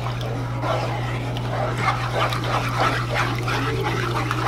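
Dogs whimpering and giving short yips, many small irregular sounds one after another, over a steady low hum.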